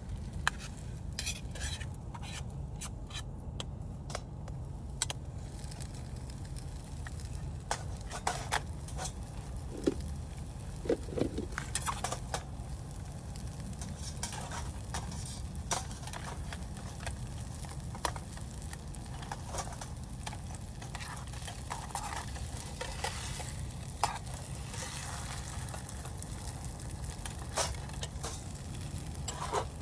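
Egg frying in a small metal pan on a gas camping stove, sizzling, with scattered clicks and scrapes of a metal spatula and pot gripper against the pan.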